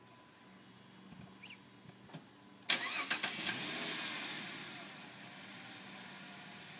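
2007 Dodge Charger engine remote-started from a button in the door handle: a few faint clicks, then about two and a half seconds in the starter cranks briefly and the engine catches, flaring up and settling to a steady idle.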